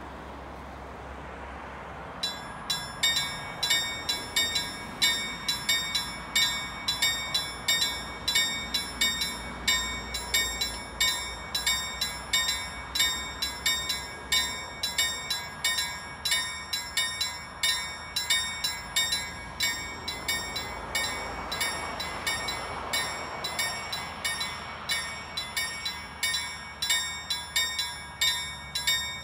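LME KLD-43 mechanical level-crossing bells start ringing about two seconds in, a fast, steady train of clanging strokes that keeps going. They are the crossing's warning that a train is approaching, sounding while the barriers lower.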